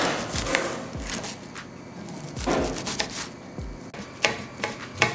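Kitchen knife chopping a bunch of leafy greens on a cutting board: irregular knocks of the blade striking the board, over background music.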